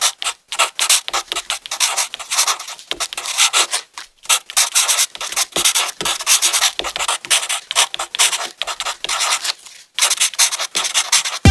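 Felt-tip marker tip rubbing and scratching on paper in rapid, uneven colouring strokes, close to the microphone, with a brief pause near the end.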